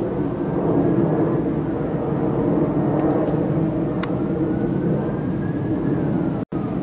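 A loud, steady engine drone, with a faint higher tone that slowly rises and then falls in pitch over it; the sound cuts out for an instant near the end.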